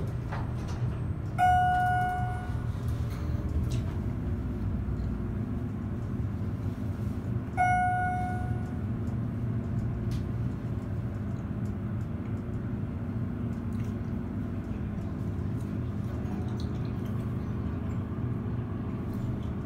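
Schindler elevator chime ringing twice, about six seconds apart, each a single clear tone fading over about a second, over the steady low hum of the elevator car running.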